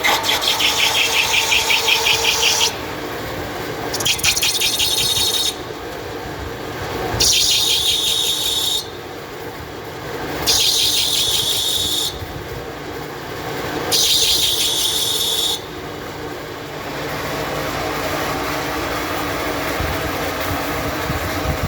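Pipe threading machine running steadily, with five bursts of high-pitched, fast-ticking squealing rasp, each one and a half to nearly three seconds long, over the first sixteen seconds. After that only the steady machine hum remains.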